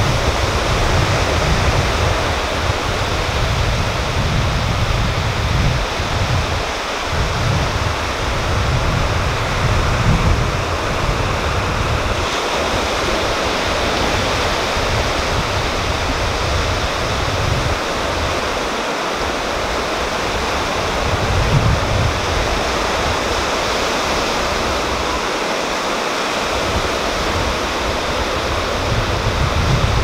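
Small ocean waves breaking and washing up a sand beach: a steady hiss of surf with a low rumble that swells and fades every few seconds.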